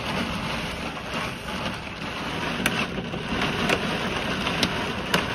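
Steady rain falling on an expedition camper, with a handful of sharp single knocks scattered through it: the first hailstones of a thunderstorm striking the vehicle.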